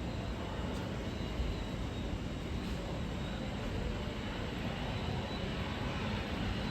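Steady aircraft engine noise: a low, even rumble with a faint high whine.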